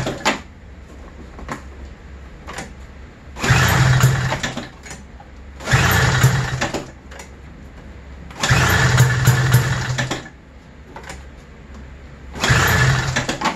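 1995 Arctic Cat ZR 700 snowmobile's two-stroke engine pulled over on the recoil starter about four times, each pull a second or so of the engine turning over without catching: a no-start from the intermittent spark fault being chased.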